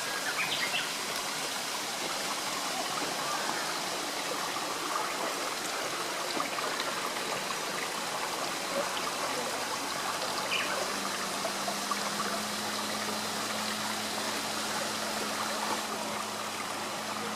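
Small garden stream flowing and trickling steadily over its bed. A few faint, short high chirps come through it, and a faint low hum joins about halfway through.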